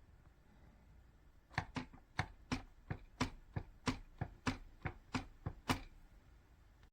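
Keys of a Perixx PERIBOARD-512 ergonomic split keyboard being struck: about a dozen sharp clicks at roughly three a second, starting about a second and a half in.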